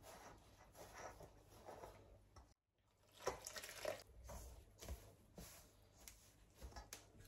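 Faint, irregular wet squelching of flour and warm water being worked together into soda-bread dough, with a brief gap of total silence about two and a half seconds in.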